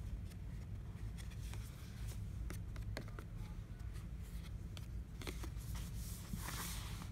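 Stiff paper pillow-menu card handled and flipped over on a bedsheet: scattered light taps and crinkles, with a brief rustling swish near the end, over a low steady room hum.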